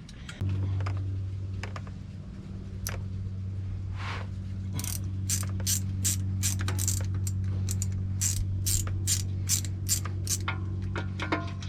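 Hand ratchet clicking as it runs in the small 10 mm oil pan riser bolts on a Jeep 3.8L engine, in a steady run of two to three clicks a second from about five seconds in, after a few scattered clicks. A steady low hum sets in about half a second in and carries on underneath.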